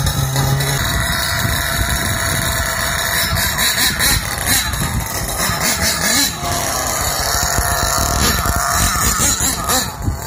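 Small nitro (glow-fuel) two-stroke engine of an RC monster truck converted from electric to nitro. It runs at a steady pitch for about the first second, then revs up and down repeatedly as the truck drives.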